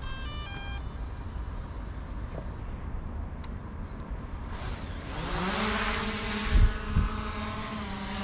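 DJI Mavic Air 2 quadcopter taking off: a few short beeps near the start, then about four and a half seconds in its motors spin up in a rising whine that settles into a steady propeller hum as it lifts off and hovers. Two brief low thumps come about six and a half and seven seconds in.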